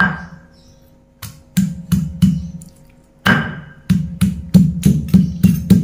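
Stone pestle pounding garlic cloves against a stone mortar (Indonesian ulekan and cobek): about a dozen sharp knocks, roughly three a second, in short runs with brief pauses between them.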